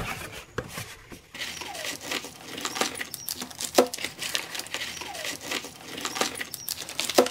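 Cardboard shipping box opened by hand, then bagged nylon cable ties and plastic parts handled inside it: scattered rustles, scrapes and light clicks, with a few short squeaky scrapes.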